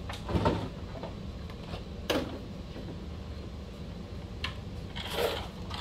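A few knocks and clicks from RC car parts being handled and set down on a work surface: a knock about half a second in, a sharp click about two seconds in, and a short clatter near the end, over a steady low hum.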